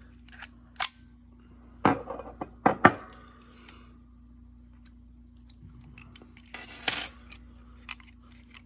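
Sharp metallic clicks and clinks as a freshly picked OnGuard slider lock and the picking tools are handled. There are a few separate knocks in the first three seconds and a short rattle about seven seconds in, over a faint steady hum.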